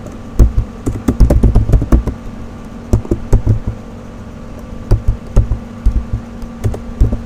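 Typing on a computer keyboard: irregular keystroke clicks in short runs with pauses between them, over a faint steady hum.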